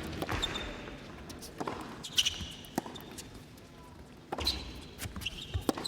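Tennis rally on an indoor hard court: sharp racket strikes and ball bounces at irregular intervals, with a few brief sneaker squeaks.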